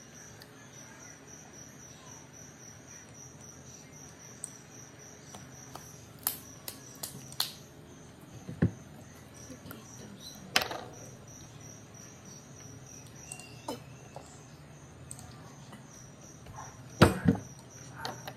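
A cricket chirping in a steady, even rhythm, about three chirps a second. Over it come scattered clicks and knocks from handling a plastic water bottle and its cap, and the loudest sound is a single thump near the end.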